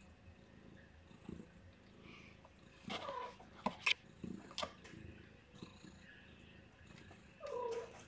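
A day-old kitten gives two short, high, squeaky mews, one about three seconds in and one near the end. There are a couple of sharp little clicks of movement between them.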